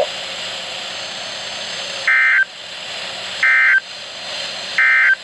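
NOAA Weather Radio receiver's speaker hissing with static, then three short bursts of SAME digital data tone about a second and a half apart. These are the end-of-message code that closes the test tornado warning.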